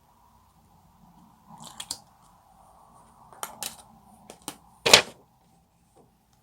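Clear slime being squeezed and pressed by hand, giving sticky crackling pops in short clusters, the loudest about five seconds in.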